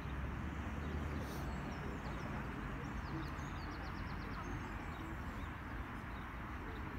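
Steady outdoor background noise with a low rumble, and a faint run of quick, high bird chirps about three seconds in.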